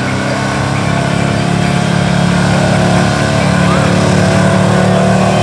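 1976 Ford F-250's stock gasoline engine running hard under load as it drags the weight sled, holding a steady pitch and growing slightly louder through the pull.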